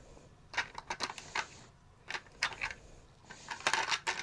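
Small GoPro accessories being set into a 3D-printed plastic tray: a scattered series of light clicks and taps, with a quick cluster near the end.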